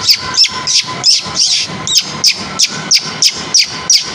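A man imitating a bird call with his mouth: a quick, even run of sharp, high whistled chirps, about three a second, each dropping in pitch.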